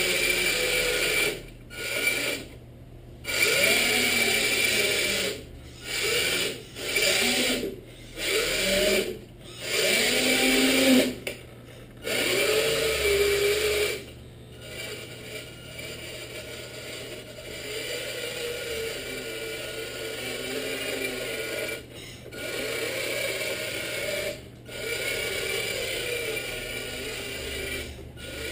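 Electric motor and gearbox of a 1/14-scale RC Scania 6x4 truck chassis, whining in short bursts as the throttle is blipped on and off, the pitch rising and falling with each burst. In the second half it runs more steadily and a little quieter.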